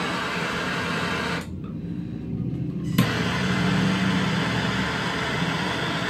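Handheld propane torch hissing. About a second and a half in the hiss cuts out. A sharp click comes at about three seconds, and the hiss starts again.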